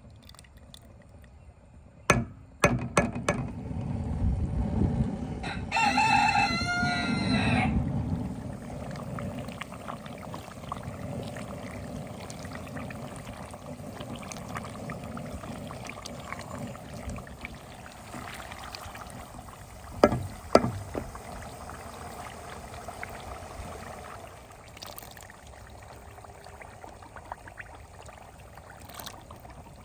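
A rooster crows once, about six seconds in, for about two seconds, over a steady low rumbling noise. Sharp knocks come about two and a half seconds in and twice close together about twenty seconds in.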